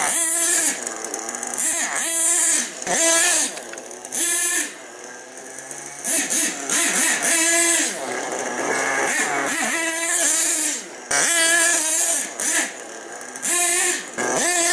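HPI Savage X 4.6 nitro monster truck's small two-stroke glow-fuel engine revving in repeated short blips, each rising and falling in pitch and dropping back between throttle stabs. It is on its fourth tank of break-in, with the needles left at the factory flush setting rather than leaned out.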